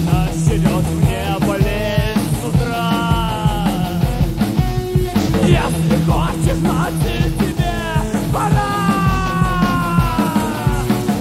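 Punk-rock band recording: drums keep a steady beat under bass and guitars, while a lead line holds long notes, the last one sliding slowly downward near the end.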